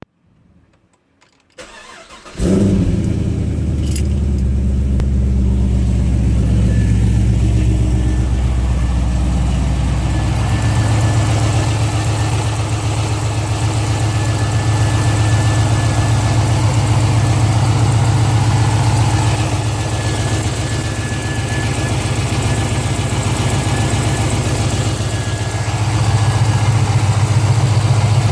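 2005 Pontiac GTO's 6.0-litre LS2 V8 cranked briefly, catching about two seconds in, then idling steadily, settling a little lower about ten seconds in. It idles with a tick that the owner cannot place as lifter tick or an exhaust leak.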